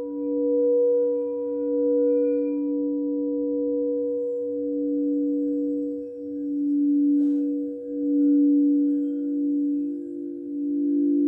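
Frosted crystal singing bowls ringing in long, overlapping sustained tones that swell and fade in slow pulses as they are rubbed. A soft knock of a mallet on a bowl comes about seven seconds in, and a higher tone joins after it, with another tone entering near the end.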